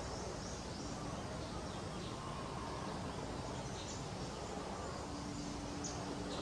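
Steady outdoor background noise with faint, scattered high chirps. A thin low hum sets in about five seconds in.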